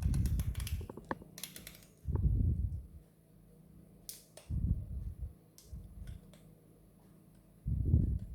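Irregular clicks and dull knocks of coffee-making equipment being handled, in four short clusters with pauses between them.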